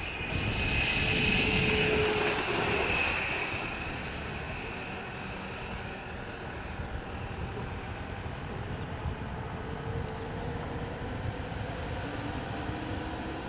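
90 mm electric ducted fan of an RC BAe Hawk jet model whining in flight. It is loudest for the first three seconds as the jet passes close, then drops to a steadier, quieter whine as it flies off.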